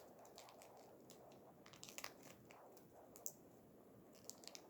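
Faint crinkling of plastic packaging being handled, with scattered small clicks and crackles, a few grouped about two seconds in and near the end.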